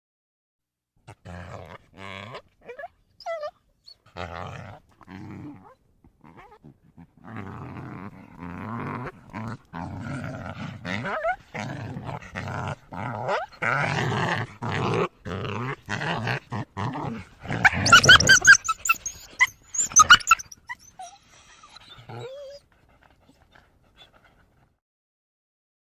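Coyotes calling: a run of short, separate calls that grows denser and busier, peaking in a loud flurry of high-pitched calls about eighteen seconds in, then trailing off.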